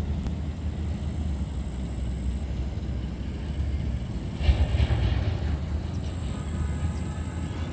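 Steady low rumble of wind buffeting the phone's microphone, with a brief louder burst about four and a half seconds in.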